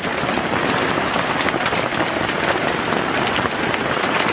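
Hail coming down: a dense, steady hiss made of many small ice pellets striking surfaces in quick succession.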